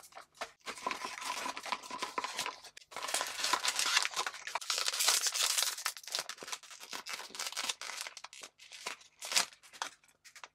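A small cardboard blind box opened by hand, then the foil bag inside crinkled and torn open. The crinkling is loudest about midway, with one sharp crackle near the end.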